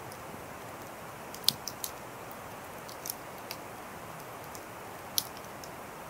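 Wood fire of glowing embers and small flames burning with a steady hiss and a few sharp crackles, the loudest about one and a half seconds in and another near five seconds.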